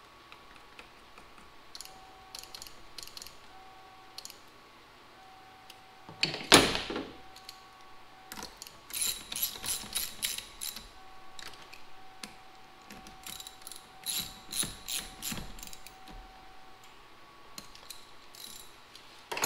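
Hand ratchet clicking in short quick runs as it is worked back and forth, with metallic ringing clicks and one loud clunk about six seconds in.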